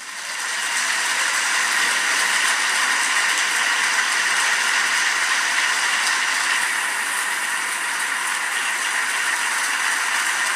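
Audience applauding a prize-winner, a dense steady clapping that swells up in the first half second, heard through a laptop's speakers.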